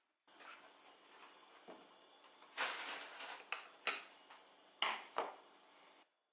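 Small wooden and brass parts of a puzzle box being handled and fitted together: a series of light clicks and knocks, with a few sharper clacks in the second half, over a faint steady hum.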